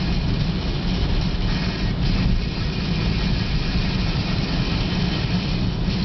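Steady cabin noise of a car driving at speed through typhoon rain: a low rumble of tyres and engine on the soaked road under an even hiss of rain and spray.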